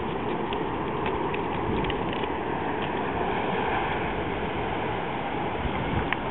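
Steady rushing noise of wind on the microphone and ocean surf, with a few faint scattered ticks.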